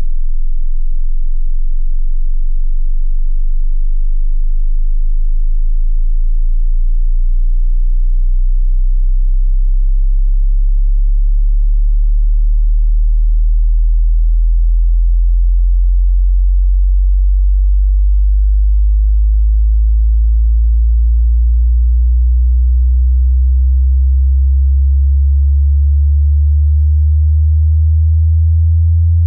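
A hearing-test sine tone at a steady loudness, gliding slowly upward in pitch from a very low hum below about 50 Hz to around 100 Hz: the low end of a frequency sweep.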